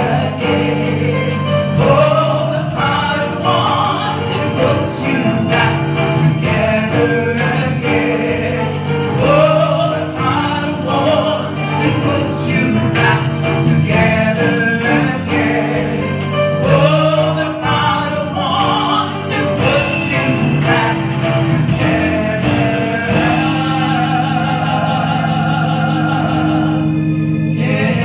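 Two women singing a gospel praise song into handheld microphones, over a steady instrumental backing. Their sung lines rise and fall throughout, and a held chord carries on near the end.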